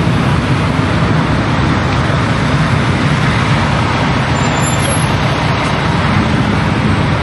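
Steady low rumble of idling diesel semi-truck engines in a truck-stop parking lot, running evenly without change.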